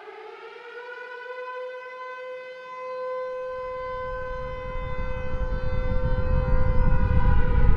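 Nuclear-explosion sound effect opening with an air-raid siren: the siren holds a steady wail, and a deep rumble swells underneath from about halfway through, growing louder toward the end.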